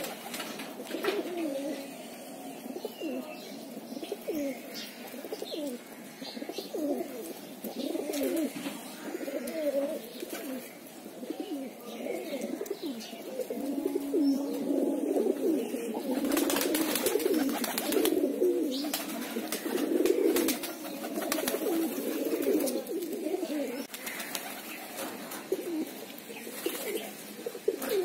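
A flock of domestic pigeons cooing, many low overlapping calls with no break, and scattered short clicks among them.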